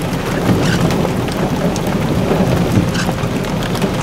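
Heavy thunderstorm rain pouring steadily, with many sharp drop impacts ticking on a nearby surface over a continuous low rumble of storm noise.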